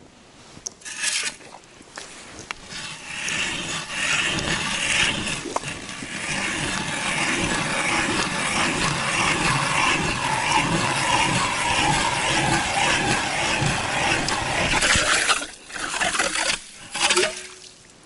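Hand ice auger drilling into ice: steady grinding and crunching of the cutting blades as the crank is turned, running for about twelve seconds. It stops about two and a half seconds before the end, followed by a couple of short bursts of noise.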